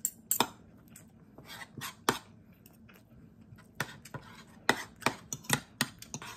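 Metal cutlery clinking and scraping against a plate as food is cut up, in a run of sharp clicks with a quiet pause of about a second and a half in the middle.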